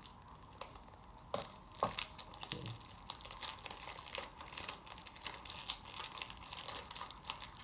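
Rapid small plastic clicks and crinkling from hands handling a new speed cube in its plastic packaging, with two sharper clicks about a second and a half in.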